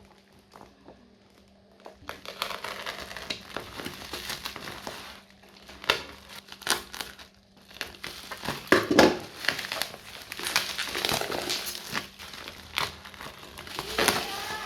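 Packaging of a camera lens being handled and unwrapped: crinkling and rustling that starts about two seconds in, broken by several sharp clicks and knocks.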